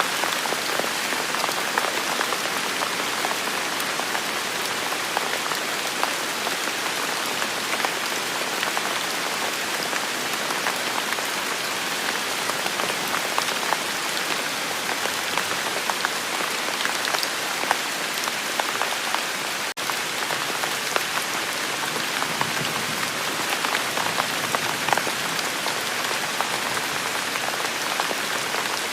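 Steady rain falling on a surface, a constant hiss with many separate drops ticking through it. The sound briefly dips for an instant about two-thirds of the way in.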